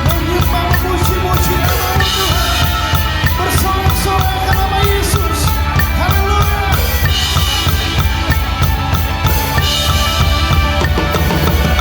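Drum kit played fast along with a rock song at 190 bpm: kick drum, snare and cymbals in a quick, steady beat over the backing track.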